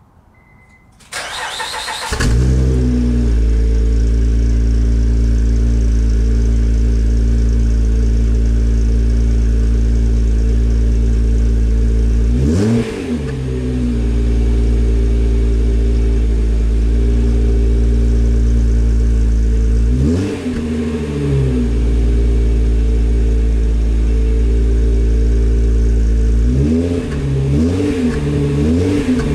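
2006 Honda Ridgeline's 3.5-litre V6 running through a Gibson cat-back exhaust: it is started about a second in, briefly cranking before it catches, then idles steadily. A single short rev about 13 seconds in, another about 20 seconds in, and a run of quick revs near the end.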